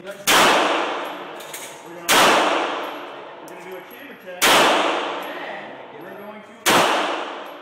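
Four gunshots fired about two seconds apart, each sharp crack trailing off in a long echo.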